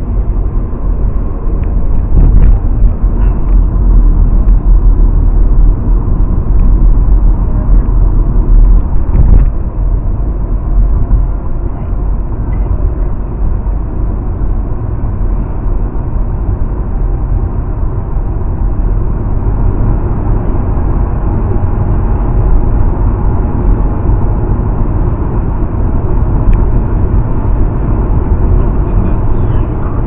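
Steady rumble of a car driving at road speed, heard inside the cabin: tyre and engine noise, heaviest in the low end.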